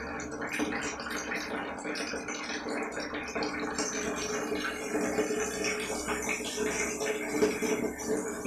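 Steady running and splashing water in a small tiled room, with scattered light rattles and clicks.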